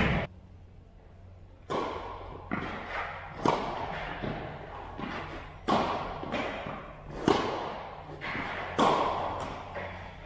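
Tennis ball struck back and forth by rackets in a rally, with bounces on the court: about seven sharp pocks, each ringing on in the echo of a large metal-walled hall.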